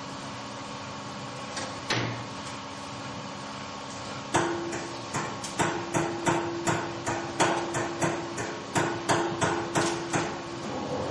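Milking parlour machinery running with a steady hum. A single knock comes about two seconds in, then from just over four seconds a run of sharp knocks, roughly two to three a second, over a steady tone, stopping shortly before the end.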